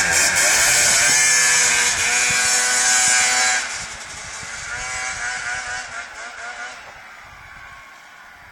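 2006 Arctic Cat Sno Pro 440 snowmobile's two-stroke engine revving hard as the sled pulls away, its pitch rising. About three and a half seconds in it drops off sharply and fades as the sled heads off down the slope, nearly gone near the end.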